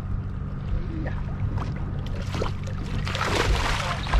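A low, steady hum of the boat's idling engine, with a splashing rush of water about three seconds in as a landing net is scooped into the sea to land a hooked fish.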